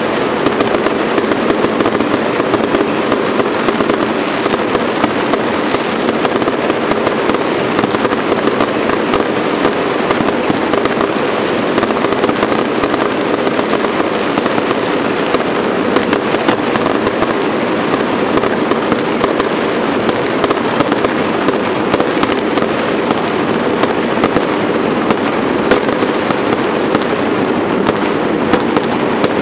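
Dense, continuous fireworks barrage: many overlapping bangs and crackling bursts following each other with no pause.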